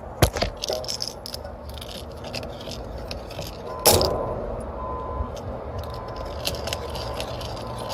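Hand reamer working the cut end of a copper refrigerant line: small metallic clicks and scrapes as the burr is taken off, with one sharp metal knock about four seconds in.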